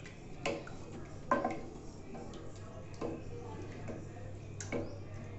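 Wooden spoon stirring a watery chana dal curry in a pressure cooker, knocking lightly against the pot's metal side about five times at uneven intervals.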